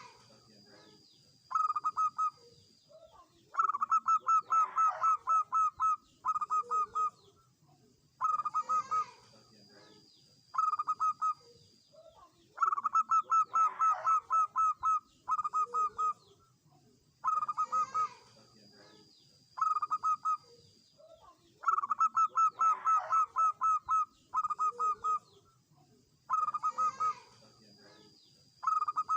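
Zebra dove cooing: short phrases of rapid staccato notes, the phrases repeating in a cycle every few seconds with short pauses between them.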